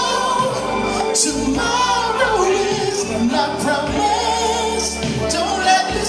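A man singing a soul ballad live into a microphone through a PA speaker, over a backing track with a steady bass line, the sung notes held with vibrato.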